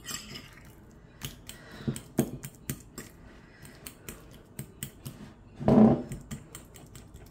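Metal fork mashing banana in a ceramic bowl: irregular clicks and taps of the fork tines against the bowl, with one louder, fuller sound about six seconds in.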